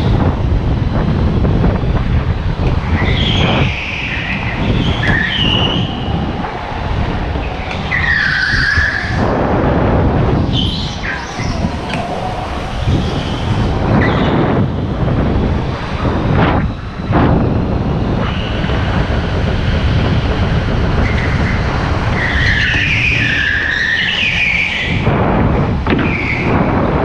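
Rental go-kart driven hard, heard from on board: its drive runs steadily underneath while the tyres squeal in short bursts through the corners, several times.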